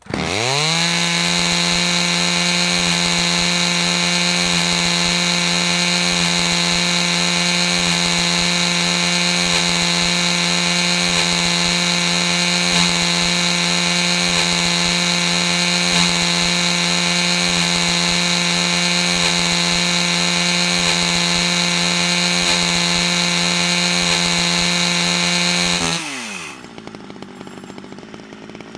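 Fan-made sound effect of a pull-cord-started Rickenbacker bass guitar running like a small chainsaw engine. It revs up within the first second to a steady buzzing drone and holds it, then winds down in pitch near the end and drops to a faint hum.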